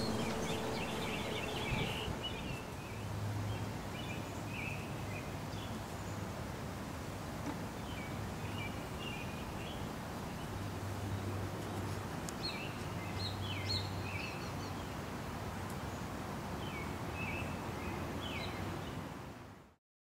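Outdoor ambience: small birds chirping in short scattered calls over a steady hiss, with a faint low hum coming and going. The last notes of orchestral music fade out in the first two seconds, and everything fades out just before the end.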